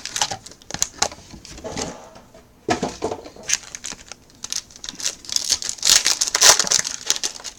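Trading card packaging being handled: crinkling and rustling of pack wrappers and cardboard, with scattered clicks and taps, heaviest about two-thirds of the way through.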